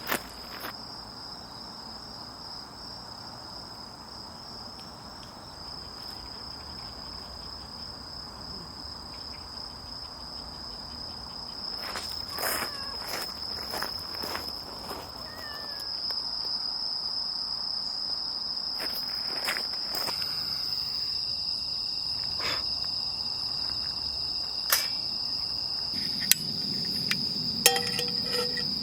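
Autumn field insects chirring in one continuous high-pitched trill that grows a little louder about halfway through. A few short sharp clicks and knocks are heard now and then.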